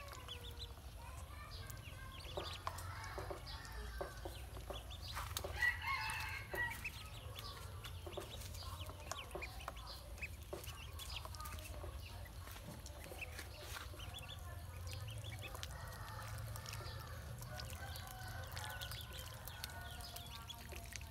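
A group of domestic ducklings peeping in short chirps while paddling in a basin of water, with small splashes and clicks; a louder bird call stands out about six seconds in.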